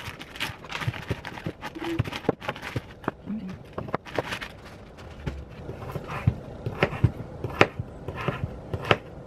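Plastic zip-top freezer bag rustling as frozen banana halves are pulled out and set down on a wooden cutting board with small knocks. Near the end, a kitchen knife starts cutting the frozen bananas, tapping on the board.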